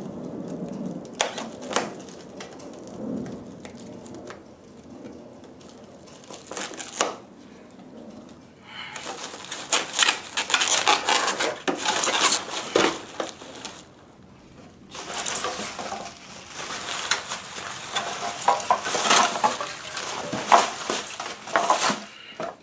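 Plastic packing and bubble wrap rustling and crinkling as they are cut and pulled loose from a 3D printer, with scattered clicks and knocks. Quiet and sparse at first, then long stretches of loud, dense crinkling in the second half.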